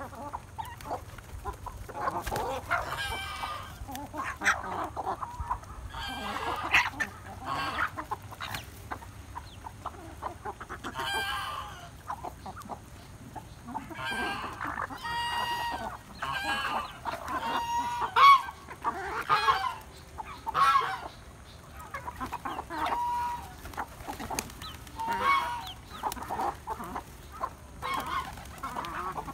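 Flock of chickens clucking and calling as they feed, with many short calls overlapping. The loudest call comes a little past the middle.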